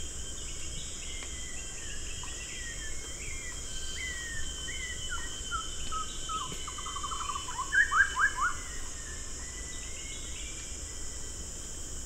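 Forest birds calling over a steady high-pitched insect drone, with many short gliding notes. A loud run of quick notes comes about two-thirds of the way in.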